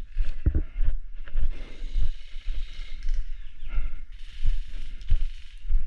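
Irregular deep thuds every third to half second, mixed with patches of rustling hiss: the movement and handling noise of a camera carried by a player on the move.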